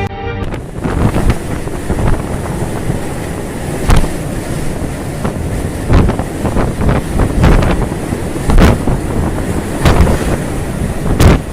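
Storm wind buffeting the microphone on a ship at sea: a loud, gusting rumble broken by frequent sharp cracks and thumps.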